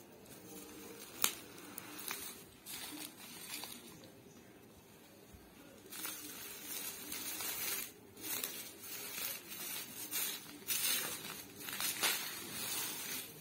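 Plastic bubble wrap crinkling and rustling in irregular bursts as a wrapped item is lifted out of a velvet box and handled, busier in the second half, with a sharp click about a second in.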